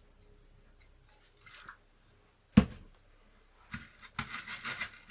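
A single sharp knock, then quick scrubbing strokes, about five a second, as a chip is cleaned by hand before being fitted.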